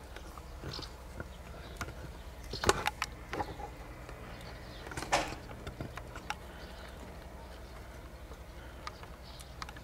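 Kitten crunching dry cat kibble from a plastic plate: scattered small crunches and clicks, with two louder knocks about three and five seconds in, over a faint low rumble.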